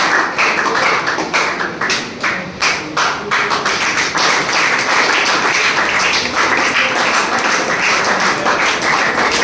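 A room full of people clapping and applauding, with many sharp individual claps standing out through the dense patter.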